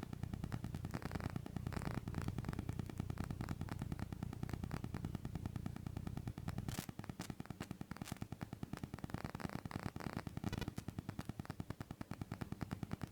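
Audio from a 70mai Dash Cam Pro's built-in microphone: rapid, even ticking interference laid over a low rumble, the extraneous noise fault in the camera's sound recording.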